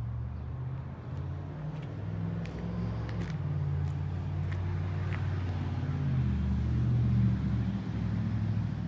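A vehicle engine running with a low hum whose pitch shifts up and down a few times. It grows louder to a peak about seven seconds in, then eases off.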